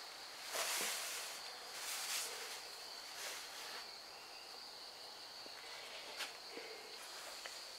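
Steady high-pitched insect chorus, crickets or similar singing without a break. Several brief bursts of noise cut across it, the loudest about half a second in, and there is a sharp click about six seconds in.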